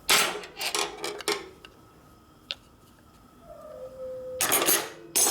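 Hand tools rattling and scraping in a few short bursts, with a louder clatter near the end and a single click in the middle.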